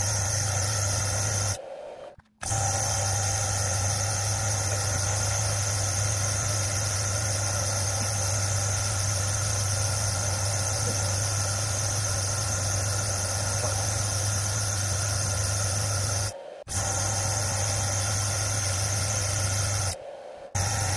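Myford lathe running steadily while it turns down a metal shaft: a constant low motor hum with a high whine over it. The sound drops out briefly about two seconds in, again about sixteen seconds in, and near the end.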